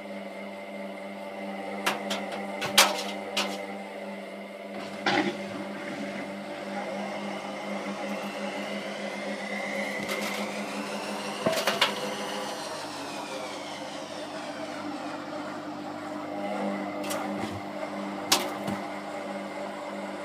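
Candy GODF800 washing machine spinning its drum with the door open: a steady motor hum with a whine that rises in pitch, then falls away. Several sharp knocks come over it.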